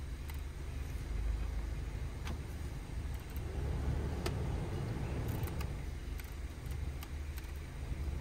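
Honda Civic engine idling steadily, with a few light clicks scattered through.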